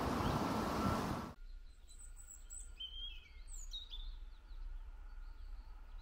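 A loud, steady rushing noise that cuts off abruptly about a second and a half in. It is followed by songbirds chirping and singing in short, scattered phrases over a faint low rumble.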